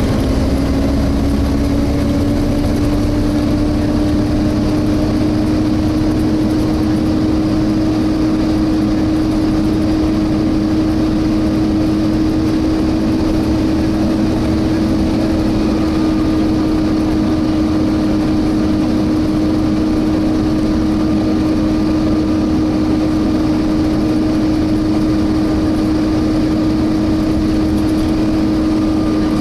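Volvo B7TL bus's engine cooling fan whining steadily, a vacuum-cleaner-like 'hoover' tone that creeps slightly higher in pitch over the first few seconds, over engine and road rumble heard from inside the bus on the move. A fainter, higher whine joins about halfway through.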